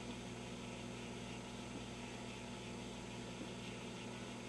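Steady mains hum with a low hiss from a just-powered vintage Admiral 24A12 tube television chassis as it warms up.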